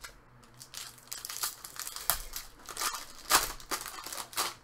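Hockey card pack wrapper handled and torn open by hand: a run of irregular crackling rustles, loudest about three and a half seconds in.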